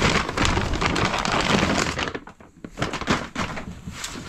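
Plastic crinkling and rustling with a few knocks as a plastic storage tote is opened and its bagged contents are handled. It is loud and dense for about two seconds, then quieter scattered rustles and knocks.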